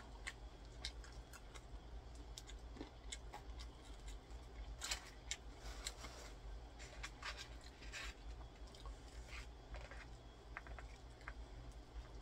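Faint close-mic eating sounds: chewing with small wet mouth clicks and scattered crinkles from handling a plastic honey packet and food.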